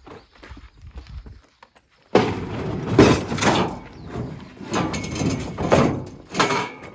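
Steel scaffold clamps clanking and rattling in a plastic tub as it is heaved onto steel pipes in a truck bed: faint knocks at first, then a loud, irregular run of metal clatters from about two seconds in.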